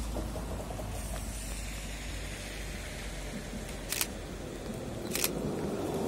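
Steady hiss of a wet street with a low rumble, as an Alstom Citadis 302 tram approaches and its running noise grows louder toward the end. There are two short sharp clicks about four and five seconds in.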